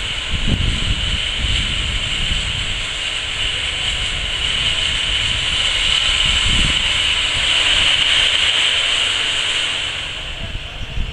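Steady loud hiss from a locomotive being readied, swelling a little and easing near the end, over gusts of wind buffeting the microphone.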